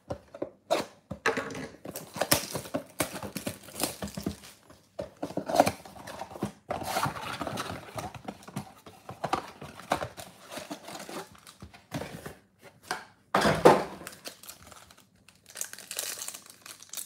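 Hands opening a cardboard trading-card box: crinkling and tearing, with irregular rustles and clicks as the flaps, paper insert and card packs are handled. About three-quarters of the way through comes one louder thump.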